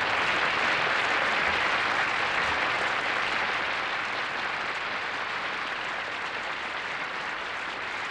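Concert audience applauding steadily, the clapping easing a little after about three seconds.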